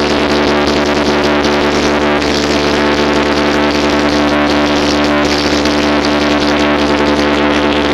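Loud electronic sound effect from a DJ sound system: a single held, chord-like synth drone that stays at one pitch without beat or change.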